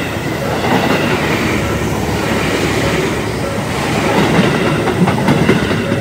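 Tobu Tojo Line electric train passing over a level crossing, its wheels rumbling and clacking over the rail joints. A burst of clacks comes near the end. The crossing's warning bells keep ringing underneath, mostly drowned out by the train.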